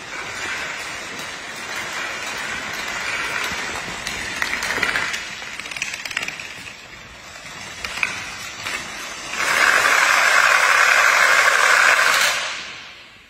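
Dominoes toppling in a chain reaction: a continuous fast clatter of many small clicks. About two-thirds of the way through it becomes a much louder, dense rush as a large block of dominoes goes down at once, then it dies away near the end.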